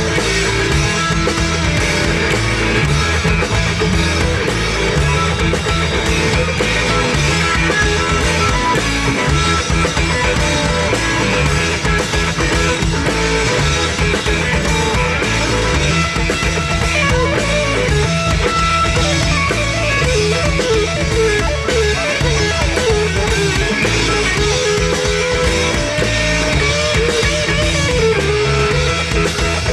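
Live rock band playing: distorted electric guitars, bass guitar and a drum kit in a steady, loud groove. About halfway through, a wavering lead melody line comes in over the band.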